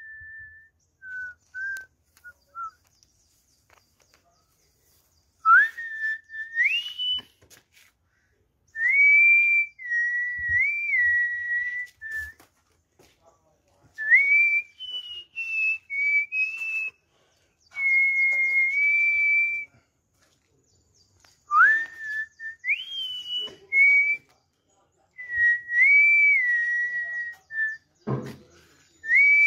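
A person whistling a tune: clear single notes, many sliding up into a held pitch, in phrases of a few seconds with short pauses between. A short dull thump near the end.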